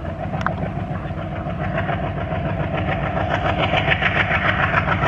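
ALCO-type diesel locomotive hauling a passenger train, its engine running under load with a low rumble and a fast, even chatter. It grows louder as the train approaches.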